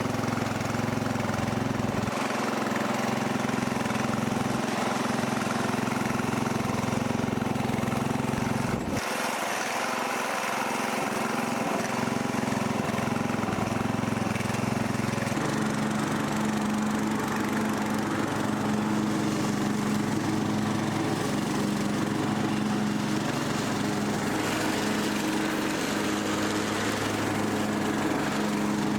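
Rebuilt Briggs & Stratton 17.5 HP riding lawn mower engine running steadily, with a brief break about nine seconds in and a change in engine note about halfway through.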